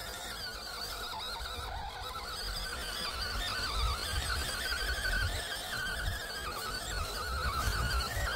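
Whine of the small 280 brushed electric motor and gearbox of a 1/12 scale MN78 RC crawler, its pitch wavering up and down as the throttle and load change, over a low rumble.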